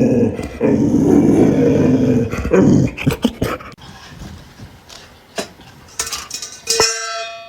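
A dog growling in a low, rough rumble for about two and a half seconds, followed by a few sharp clicks and knocks.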